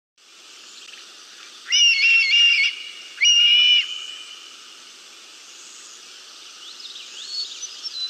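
Recorded call of a red-tailed hawk played back over the webinar audio: two loud, high-pitched calls at about two and three seconds in, over a steady hiss, with fainter short rising calls near the end.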